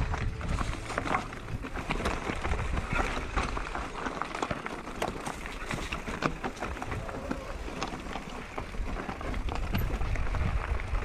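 Electric mountain bike being ridden over rough, stony dirt: tyres crackling over loose ground with many small knocks and rattles, and wind rumbling on the microphone.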